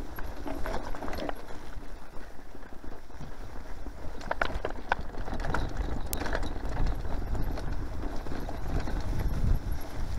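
Mountain bike riding fast down rough grassy singletrack: the tyres rumble over bumpy turf and the bike rattles and knocks in an uneven rhythm. A few sharp clicks come about four to five seconds in.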